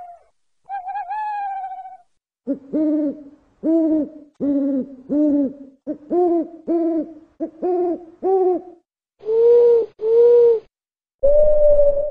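Background music: a simple electronic melody of clean, pure-sounding notes. A sliding note opens it, then about ten short notes follow in an even rhythm, then two longer notes, and a held tone comes in near the end.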